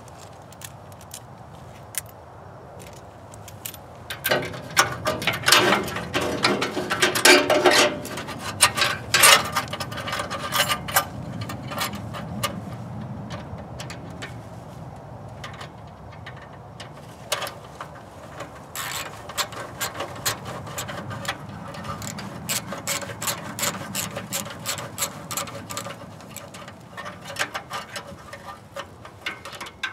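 Socket ratchet clicking in repeated back-and-forth strokes, tightening a band clamp around an exhaust heat shield and pipe to stop the shield rattling. The clicking starts about four seconds in and is loudest for the next several seconds, then goes on steadier and lighter.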